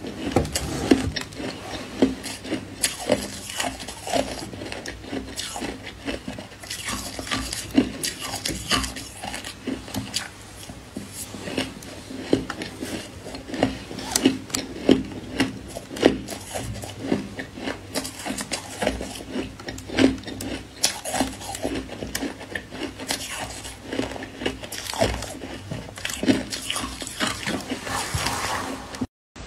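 Crunching of powdery white ice being chewed, a run of irregular crisp crunches, with a metal spoon now and then scraping and clinking against a stainless steel pot.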